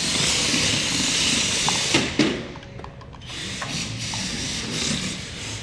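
Air Hogs Hyper Tracks remote-control tracked vehicles driving on a hardwood floor: a steady whir of small electric motors and treads. It is loudest for the first two seconds, drops off suddenly, then returns more quietly with a few light ticks.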